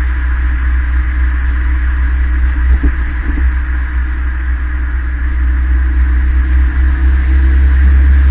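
2013 Hyundai Veloster Turbo's turbocharged 1.6-litre four-cylinder, breathing through a Borla aftermarket exhaust, running at a steady cruise with a deep low rumble under road noise, rising slightly near the end.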